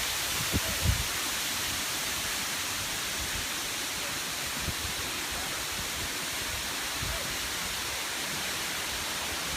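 Steady rushing hiss of falling water from Waimoku Falls. A couple of brief low thumps come about a second in.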